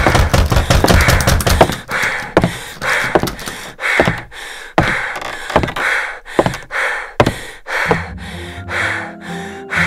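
Sharp knocks repeated in a steady rhythm, a little more than one a second, each followed by a noisy rush. Low, sustained music comes in near the end.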